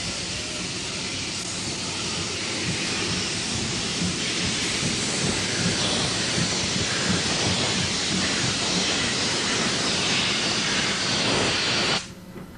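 Steam locomotive venting steam in a loud, steady hiss with a low rumble underneath. The hiss swells over the first few seconds and cuts off abruptly near the end.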